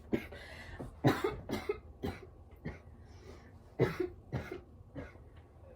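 A woman coughing repeatedly after inhaling from a vape pen: short fits of two or three coughs, the strongest about a second in and about four seconds in, with single coughs between.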